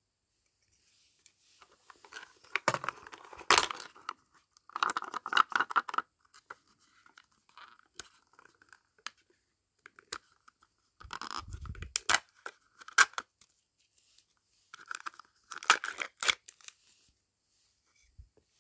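Plastic wrapping being torn and peeled off a Mini Brands surprise capsule in several short crinkly bursts, with sharp clicks from the hard plastic shell being handled and prised open.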